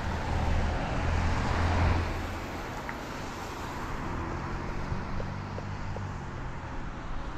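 Road traffic going by, with a vehicle passing loudest about two seconds in and a steady low engine hum after it.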